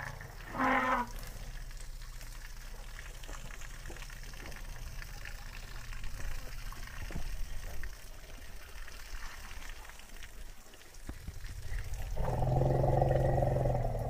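Elephant calling: a short call about a second in, then a long, steady low call starting near the end, over a low background rumble.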